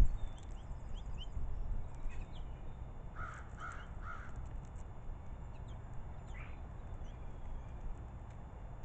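Birds calling: thin, high chirps scattered throughout, and three short, harsher calls in quick succession about three to four seconds in.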